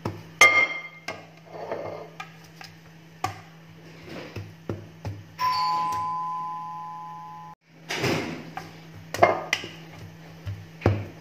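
Soft taps and scrapes of a drinking glass pressing shredded kunafa dough into a metal pan, over background music with a steady beat. About five seconds in, an electronic two-tone chime rings for about two seconds and then cuts off suddenly.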